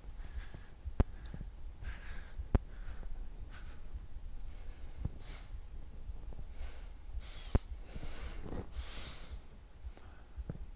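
A man's breathing, a soft breath about every second, with three sharp clicks, the first about a second in.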